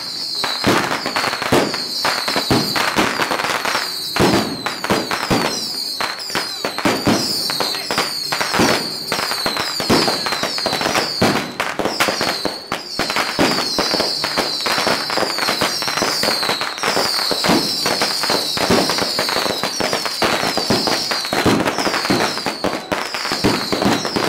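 Dozens of small boxed firework cakes going off at once on a street, giving a dense, unbroken run of sharp cracks and bangs. Many high whistles overlap above the bangs throughout.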